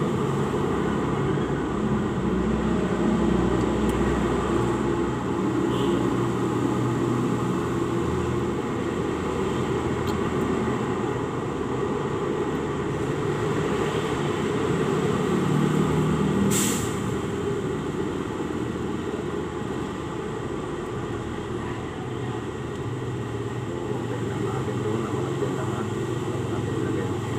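Steady low mechanical rumble, like a motor or engine running nearby, with one sharp click a little past the middle.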